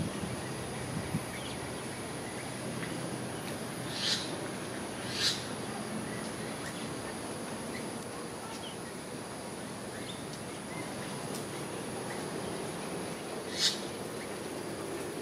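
Outdoor ambience: a steady high insect drone over a low background hum, with short high chirps about four and five seconds in and again near the end.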